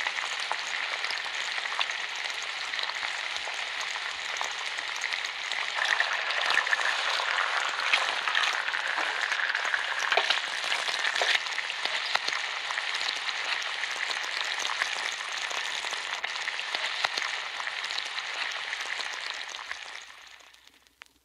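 Bacon frying in a pan: a dense, steady sizzle with sharp crackling pops, louder for several seconds in the middle, then fading out near the end.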